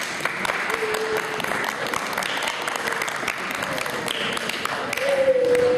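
Audience applauding steadily with dense clapping that starts suddenly just before this moment, and a long held tone rising over it about five seconds in.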